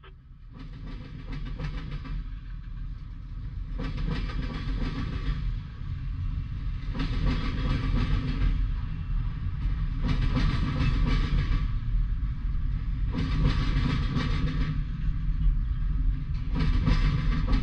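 Freight train cars rolling past, a steady rumble with a burst of wheel clatter over the rail joints every three seconds or so. The sound builds up over the first couple of seconds.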